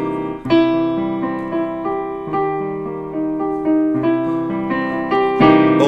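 Piano playing a polychord, an E-flat major triad over a C major triad, that rings and fades. It is followed by a string of further notes and chords struck one after another, each decaying, which by about four seconds in have come down to just C and E.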